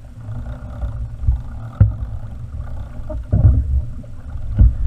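Water slapping and gurgling against a pedal kayak's hull on open sea, with wind buffeting the camera microphone as a heavy, steady rumble. A few sharp thumps stand out, about two seconds in, past the middle, and near the end.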